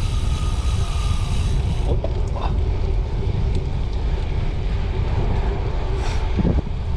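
Steady rush of wind over the microphone of a camera riding on a moving bicycle, heaviest in the low end.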